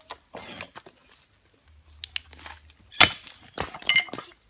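Hard debris being handled during yard clean-up: a loud sharp clank about three seconds in, then a few smaller clinks with a brief ring.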